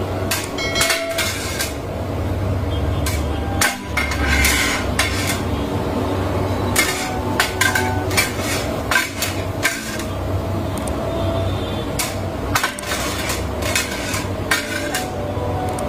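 Kottu roti being chopped on a flat steel griddle: two metal blades clatter against the plate in rapid, irregular runs of strikes, over a steady low hum.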